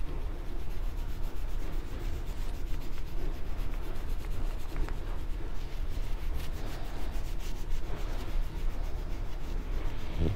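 Oil pastel rubbing on paper in rapid back-and-forth scribbling strokes as a child colors in a drawing, going on steadily without a break.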